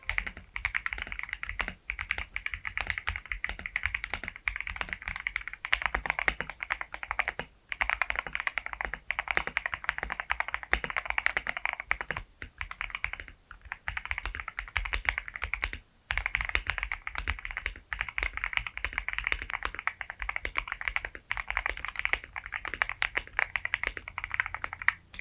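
Fast, continuous typing on an Akko ACR Pro 68 mechanical keyboard, a dense run of key clacks, in several runs separated by brief pauses. The runs are a sound test of the keyboard with different case foam fillings.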